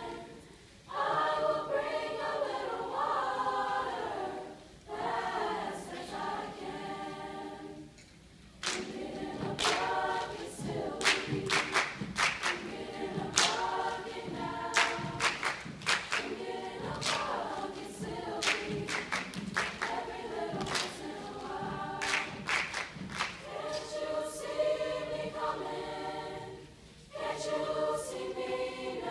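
Large mixed high-school choir singing a cappella, in phrases broken by short pauses. From about nine seconds in until about twenty-two seconds, sharp claps sound along with the singing.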